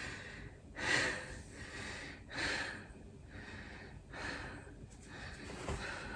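A man's heavy breathing as he catches his breath after a set of twenty sit-ups: about four loud, noisy breaths, roughly a second and a half apart.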